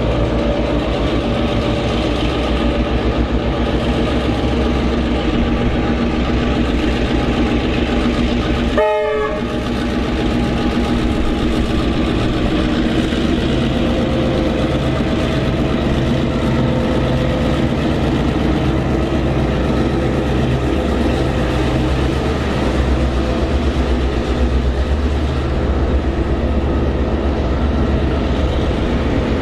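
Victorian Railways T-class diesel-electric locomotive (T356) running under power as it hauls a passenger train past, a steady engine note throughout. The sound breaks off briefly about nine seconds in.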